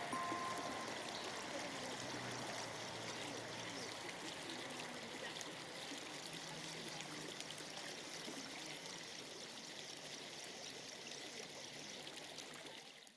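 A steady rush of flowing water, like a stream, slowly fading and then cutting off abruptly near the end. The last few music notes die away just at the start.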